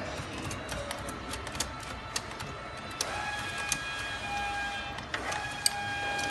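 Light metallic clicks and taps of a wrench being worked against a metal machine housing, with a steady high tone from about three seconds in.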